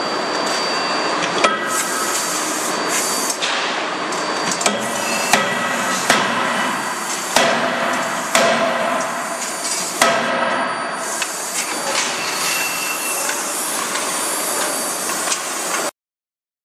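A 31.5 kJ CNC die-forging hammer striking a hot connecting-rod blank in the die: repeated heavy blows, roughly one a second, over steady forge-shop noise. The sound cuts off suddenly near the end.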